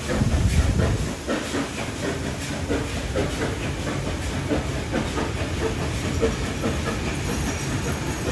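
AD60 class Beyer-Garratt steam locomotive 6029 working away with steam hissing from its cylinders and a repeating exhaust beat. The wheels of its water tank wagon and carriages click over the rails as they roll past.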